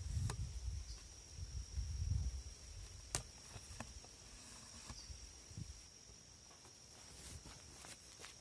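Steady high-pitched insect trill, with a low rumble in the first two seconds and a few faint clicks, the sharpest about three seconds in.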